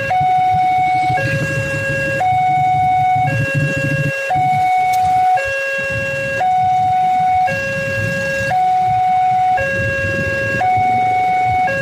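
Railway level-crossing warning alarm sounding a loud electronic two-tone signal, alternating between a higher and a lower tone held about a second each, warning that a train is approaching.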